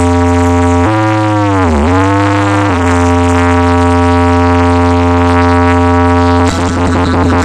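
Competition DJ box sound system blasting a loud, steady electronic drone with deep bass; about a second in its pitch swoops down and climbs back up, and near the end a pulsing electronic beat takes over.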